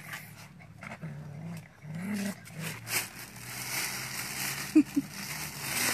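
Puppies growling low as they jostle over food, with plastic bags rustling, and two short sharp yelps about five seconds in.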